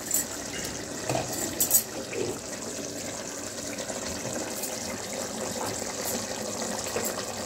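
Chicken masala sizzling steadily in a pan as it is sautéed down, with the oil separating from the masala as the chicken nears done. A couple of light clicks come about a second in.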